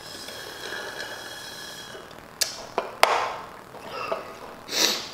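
Sucking air through a straw at the bottom of an emptied fountain-drink cup: a thin, steady whistling slurp for about two seconds. Then a couple of sharp knocks, the loudest about three seconds in, as the paper cup is set down on the stone counter.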